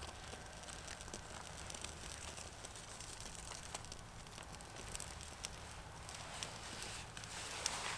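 Small tinder fire on a bark base crackling faintly with scattered sharp pops, growing louder near the end as it catches.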